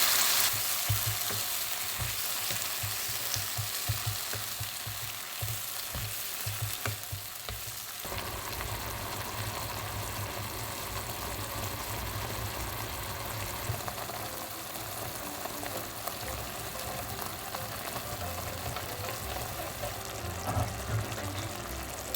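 Food sizzling as it fries in a pan, loudest at the start and settling to a steadier sizzle.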